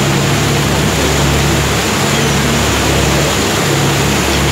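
A cruise boat's engine hums steadily and low under the rushing of its churning wake and wind on the microphone.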